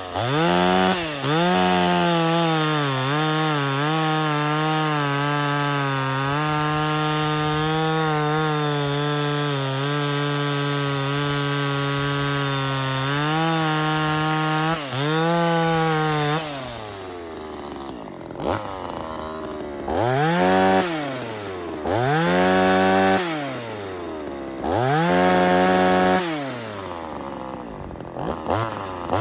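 Small 26 cc two-stroke chainsaw held at full throttle for about sixteen seconds, its pitch wavering slightly as it cuts wood without bogging down. It then drops to an uneven idle with four short revs up and back down: the fresh engine is not yet tuned and idles erratically.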